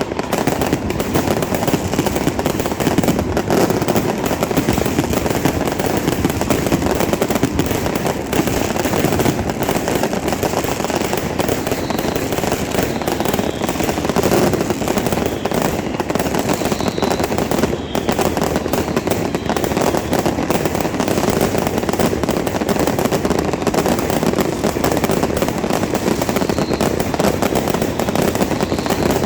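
Fireworks and firecrackers going off in a dense, unbroken crackle, too many bangs to count, loud throughout.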